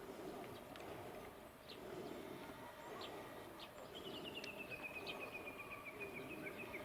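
Outdoor ambience with a low steady murmur and a few short bird chirps. About four seconds in, a bird starts a long, rapid trill that slowly falls in pitch.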